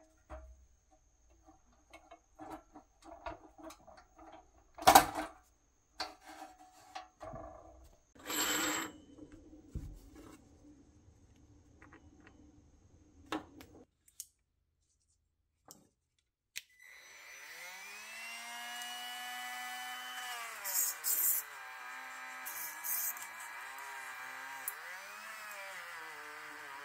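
Light metal clicks and taps as small toy parts are handled and a pin is fitted, with one sharp knock about five seconds in. A little past halfway a small cordless rotary tool spins up with a rising whine and keeps running. Its pitch dips as its small wheel is pressed into a chrome cup-shaped part, and there are short gritty bursts where it bites.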